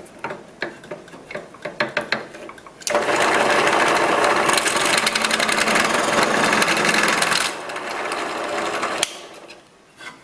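A drill press running with a large twist bit boring into a wooden board. It is loud, starts about three seconds in after a few light knocks, drops somewhat about seven and a half seconds in, and stops about nine seconds in.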